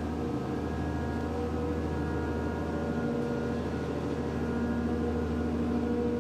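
Sea-cleaning skimmer boat's machinery running steadily as its debris conveyor lifts floating litter from the water: a constant low drone with a steady whine on top.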